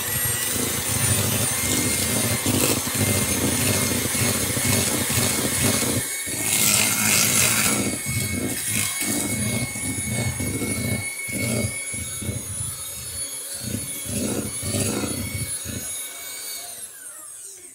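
Electric hand mixer running at a steady whine while its beaters churn eggs into creamed butter and sugar, clattering irregularly in the bowl. The motor winds down just before the end.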